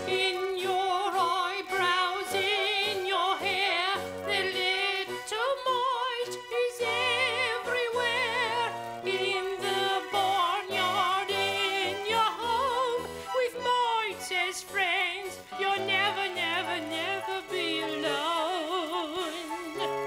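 A song sung in an operatic style with heavy vibrato, over an instrumental accompaniment with a stepping bass line.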